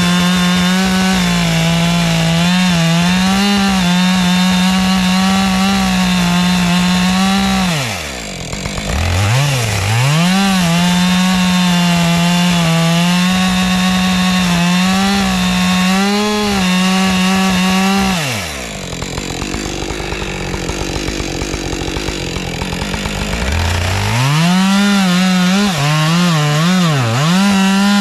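Husqvarna 550 XP two-stroke chainsaw held at high revs cutting into a log, its pitch sagging and recovering about eight seconds in. It drops back to idle a little past halfway, then is blipped up and down in quick revs near the end.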